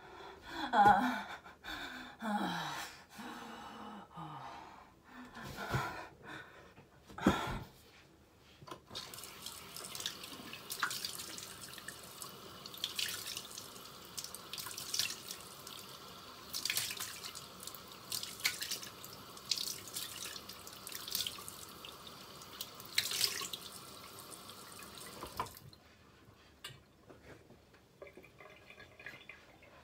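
A woman's wordless vocal sounds over the first few seconds, then steadily running water with intermittent splashes for about sixteen seconds, cutting off suddenly.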